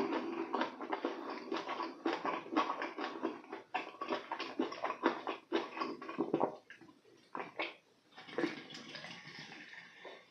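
Close-miked wet mouth sounds of eating: rapid clicking smacks and swallows for about six seconds. After a short pause, softer wet sounds of drinking from a soda can near the end.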